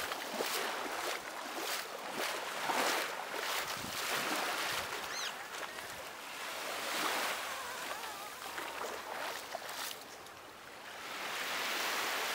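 Sea waves washing onto a beach, the surf swelling and falling away every few seconds.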